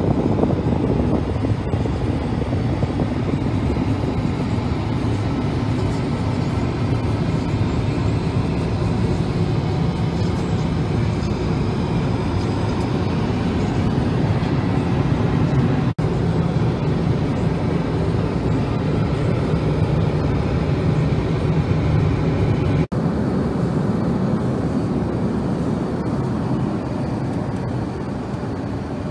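Steady in-flight cabin noise of an Airbus A380 airliner: a continuous low rush of airflow and engines, with two very brief dropouts.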